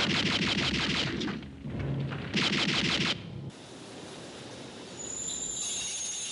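Two bursts of rapid machine-gun fire, the first about a second and a half long and the second shorter, about a second later, followed by a quieter hiss.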